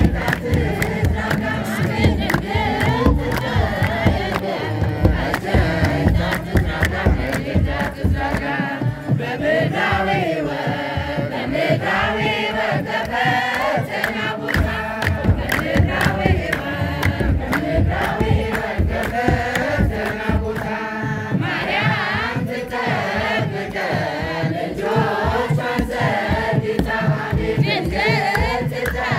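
A crowd of men and women singing an Ethiopian Orthodox hymn together, with hand-clapping and drum beats keeping a steady rhythm.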